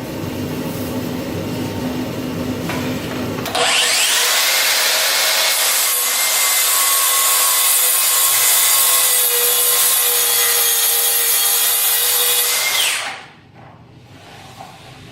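Makita cordless track saw ripping through 7/16-inch OSB. After a few seconds of lower rumbling, the saw spins up suddenly about three and a half seconds in. It cuts loudly and steadily for about nine seconds with a whine over the cutting noise, then winds down near the end.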